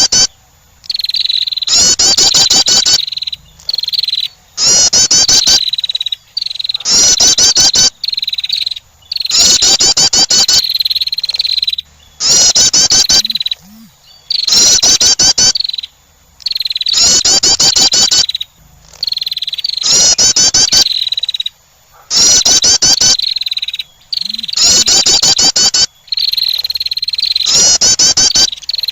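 A female wren's call, as used to lure birds, played loudly: a fast trilled phrase of about a second and a half, repeated about every two and a half seconds.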